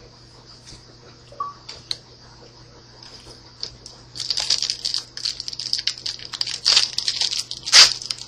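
Crinkling and rustling of a foil Yu-Gi-Oh booster pack being torn open and handled, starting about four seconds in after a few faint clicks, with sharper crackles near the end.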